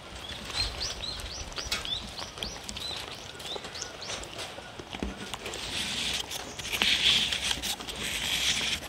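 A dog eating from a paper plate: small chewing and licking clicks throughout. A bird chirps a quick run of rising notes, about two a second, in the first half. A high hissing buzz swells in the second half, loudest about seven seconds in.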